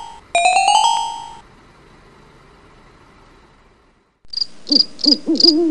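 A bell-like chime rings and fades away over about a second. About four seconds in, night sound effects start: crickets chirping about three times a second and an owl hooting.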